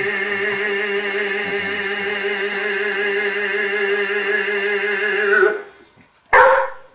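Theremin music: one long, wavering held note that cuts off about five and a half seconds in, followed near the end by a short loud sound.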